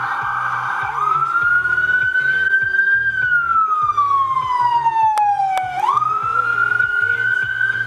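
Ambulance's electronic siren: a fast yelp switches about a second in to a wail that climbs, falls slowly over a few seconds, then sweeps quickly back up.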